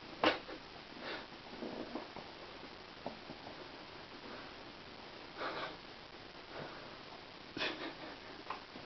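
A handful of short, breathy sniffs and puffs of breath, the sharpest just after the start and another near the end, over quiet room tone.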